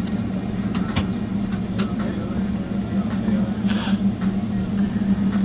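Steady low cabin hum of a jet airliner taxiing slowly. A few sharp clicks come in the first two seconds, and a brief burst of hiss comes just before four seconds in.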